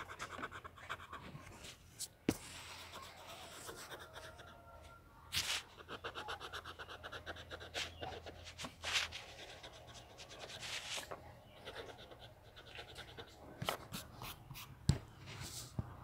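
Quick back-and-forth colouring strokes scratching on sketchbook paper, with a few sharp knocks from the phone being handled.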